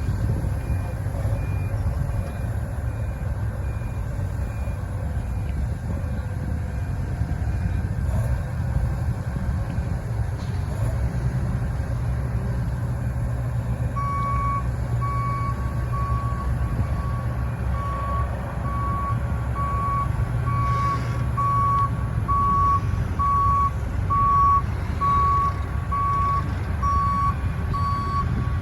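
Heavy construction vehicle engine running with a reversing alarm beeping about once a second, the louder beeping starting about halfway through. A fainter, higher-pitched backup alarm beeps in the first few seconds.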